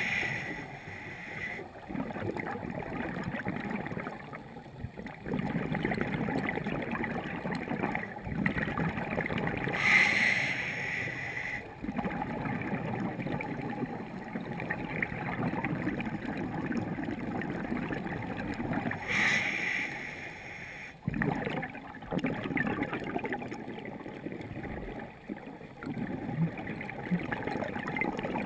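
Underwater audio from a diving camera: a steady low rush of water, broken about every ten seconds by a burst of scuba regulator exhaust bubbles, three times.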